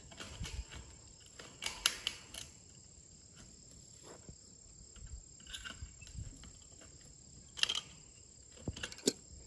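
Wire being twisted and tied onto a steel fence post and hog panel, giving scattered metallic clicks and scrapes, a cluster about two seconds in and more near the end, over a faint steady high-pitched tone.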